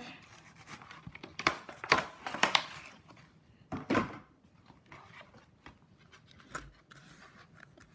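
Cardboard and plastic packaging being handled: short crinkling rustles and taps, in bursts about two seconds in and again near four seconds, then quieter handling.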